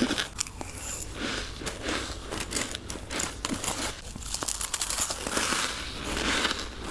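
Close-miked bites into frost: a run of irregular crisp crunches and crackles as the frost is crushed between the teeth.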